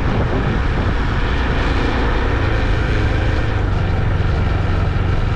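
Motorcycle running steadily while being ridden, a dense rushing noise over a low engine hum that settles into a steady note about two seconds in.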